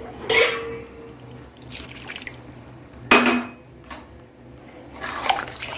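Two sharp clinks of utensils against an aluminium kadai, each with a brief ringing tone, about a third of a second in and about three seconds in. Faint watery sounds come from warm water just added to the braised chicken.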